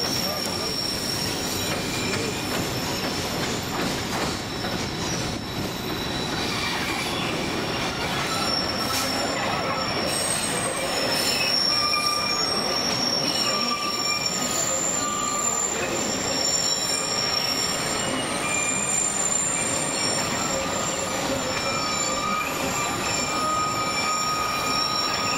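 Narrow-gauge tourist train's steel wheels squealing against the rails on a curve. Several high, steady squeal tones come and go over the constant rumble of the cars rolling along the track.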